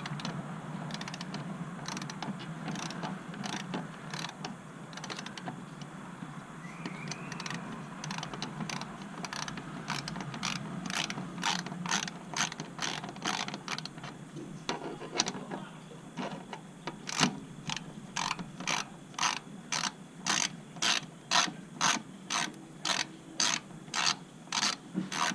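A 3/8-inch drive ratchet clicking as it backs out a half-inch muffler mount bolt on a Harley-Davidson. The clicks are faint and irregular at first, then from about two thirds of the way through come louder and even, about two a second.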